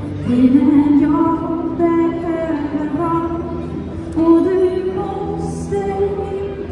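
Live music: a woman singing long held notes into a microphone, accompanied on acoustic guitar.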